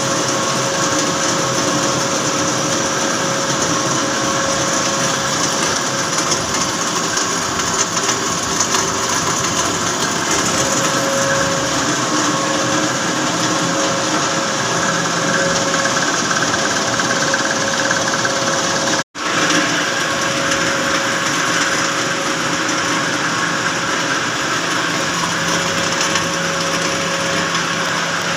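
HVAC chiller machinery running steadily, a constant mechanical hum with a steady whine over a broad hiss. The sound cuts out for an instant about two-thirds of the way through.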